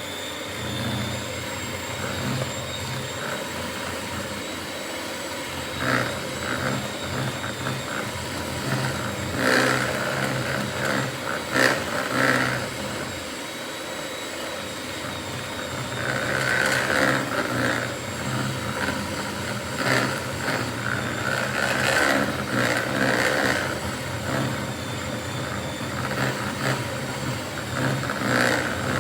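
Electric mixer running steadily as it beats brownie batter of flour, sugar, eggs and melted chocolate and butter, with its motor whine holding a constant pitch and the load on it rising and falling as the beaters work through the batter, and irregular clattering as they knock against the bowl.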